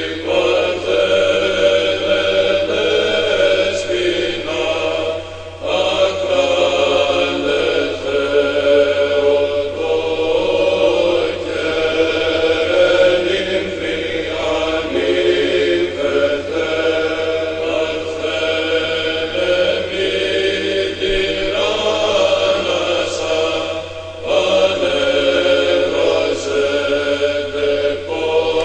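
Sung religious chant, voices holding long, slowly moving notes in phrases, with short breaks between phrases about five seconds in and again near the end.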